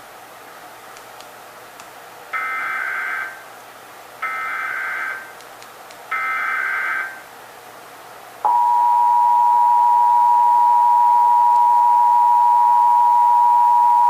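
Emergency Alert System SAME header: three one-second bursts of coded data tones, about two seconds apart. About eight seconds in, the steady two-tone EAS attention signal (853 and 960 Hz) starts and holds, marking the start of the alert, here a required monthly test.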